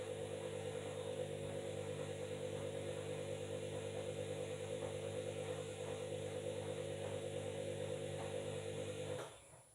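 Washing machine running at a steady speed: an even motor hum and whine with a fast regular pulse from the turning drum. It cuts off abruptly near the end.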